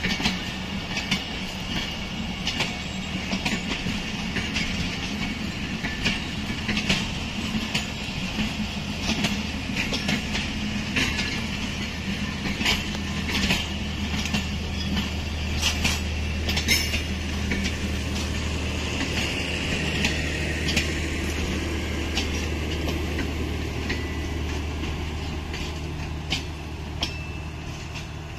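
Pakistan Railways passenger coaches rolling past, their wheels clicking and knocking irregularly over the rail joints. A steady low hum grows stronger from about halfway through.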